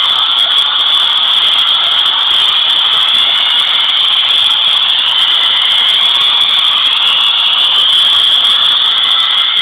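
Harsh, high-pitched screeching noise from the soundtrack, held steady and loud without a break, played through a Nintendo DSi's small speaker.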